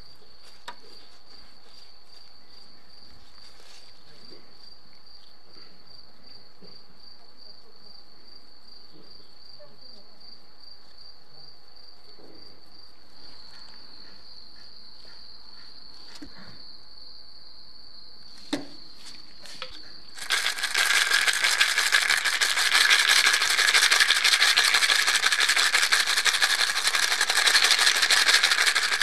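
A handful of steel hex nuts shaken hard in a small plastic cup, a loud, dense metallic rattle that starts about two-thirds of the way through; the nuts are being coated in black paint. Before it, a steady high trill with a few faint clicks.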